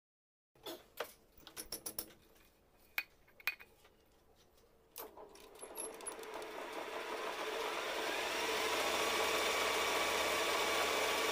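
A series of sharp clicks and knocks, then a manual metal lathe starting up and running steadily with a crusher shaft turning between chuck and tailstock centre. A faint rising whine comes in as it gets up to speed, and the running noise grows over a few seconds before holding level.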